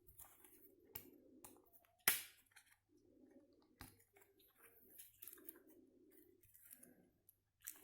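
Blades and tools of a Victorinox RangerGrip 74 pocket knife being pried open by hand: faint metallic clicks and handling scrapes, with one sharper snap about two seconds in.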